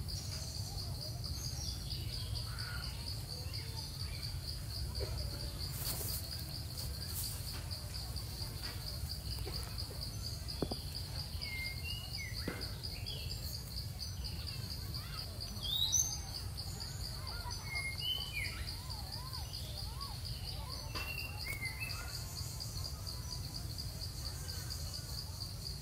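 Steady, high-pitched insect trill, pulsing fast and unbroken, with scattered short chirps over it.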